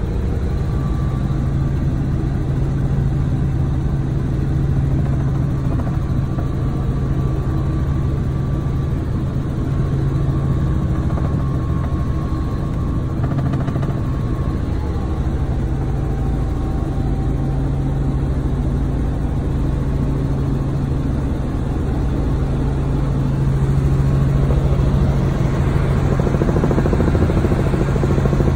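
Helicopter in flight heard from inside the cabin: the engine and rotor make a steady, loud, low drone that grows a little louder near the end.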